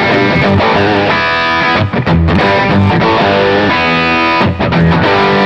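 AGL TE pine-bodied Telecaster-style electric guitar with a humbucker and single-coil (HS) pickup layout, played with a pick: chords struck and left ringing, a new chord about every second.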